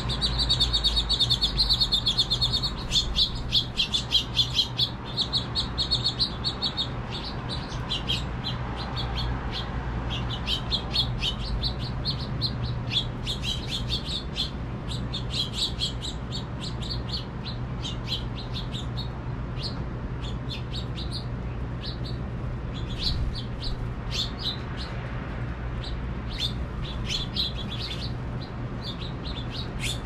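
House finches chirping and twittering at close range, a fast warbling run in the first few seconds and then repeated bursts of quick high chirps, over a steady low rumble.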